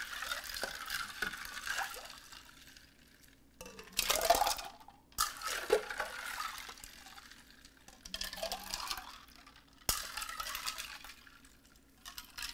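Rosemary lemonade being ladled from a glass bowl into a tall glass: the liquid splashes and pours in several short spells, with light clinks of glass.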